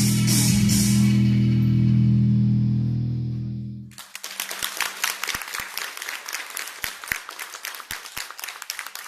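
Guitar-led dance music ends on a long, sustained low chord that fades out about four seconds in. Audience applause follows and continues to the end.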